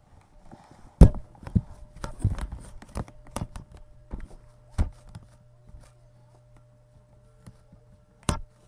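Handling noise from a handheld camera being moved about: a series of sharp knocks and bumps at uneven intervals, the loudest about a second in, with a faint steady hum underneath from about three seconds on.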